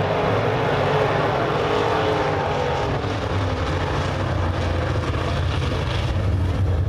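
A field of open-wheel modified dirt-track race cars running laps together, their engines mixing into a loud, steady engine noise as the pack comes through the turn.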